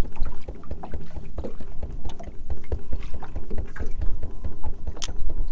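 Water lapping and slapping against a fishing boat's hull, with wind buffeting the microphone: a steady low rumble with irregular small knocks and splashes, and a sharp click near the end.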